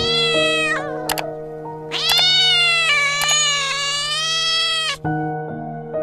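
Domestic cat meowing: a short meow in the first second, then one long drawn-out meow lasting about three seconds, over background music.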